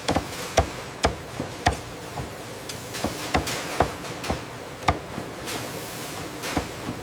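A series of sharp, irregularly spaced knocks, roughly one or two a second, each with a brief ring.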